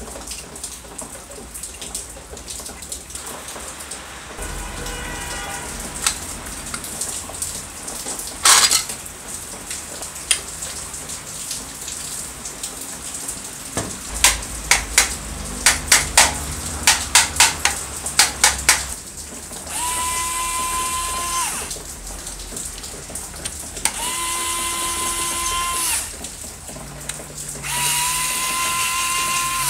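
Aerosol spray paint can being shaken, its mixing ball rattling in a run of quick clicks. Then come three hissing spray bursts of a second or two each, with a steady whistle from the nozzle.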